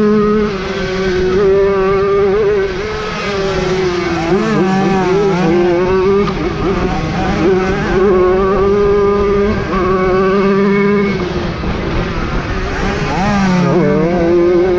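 Several small two-stroke Jawa 50 motorcycle engines running at high revs in a race, one holding a steady high pitch while others rise and fall in pitch as they rev and pass.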